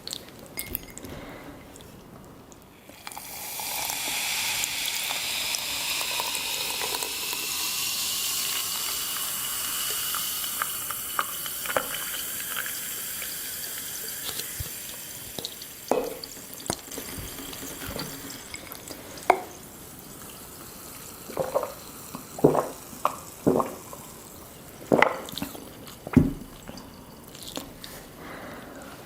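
Liquid being poured into a glass for about twelve seconds, the pitch of the pour rising slowly as the glass fills. It is followed by a scattered series of sharp clicks and knocks.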